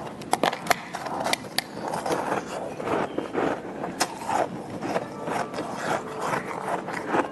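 Close-up crunching and chewing of flavoured shaved ice in the mouth, with many sharp cracks as the ice breaks.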